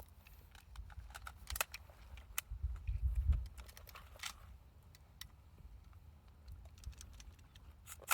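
Scattered light metallic clicks and rattles of AR-15 rifles being handled during dry-fire practice, with a low rumble about three seconds in.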